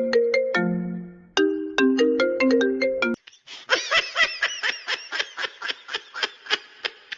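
A ringtone-style tune of short, bright, bell-like notes, the phrase ending on a held low note and then starting over. About three seconds in it cuts off and a different comedy sound effect begins: a run of quick, high, squeaky, wavering sounds, about three a second.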